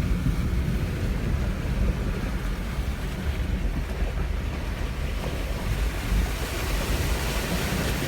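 Jeep Wrangler Rubicon wading through deep river water, its engine rumbling low under a steady rush and slosh of water against the body; the water hiss grows louder over the last couple of seconds.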